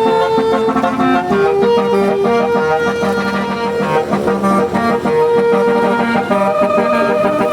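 Indonesian bus 'basuri' musical horn (telolet) playing a melody of held notes that step up and down in pitch over a repeating lower accompaniment.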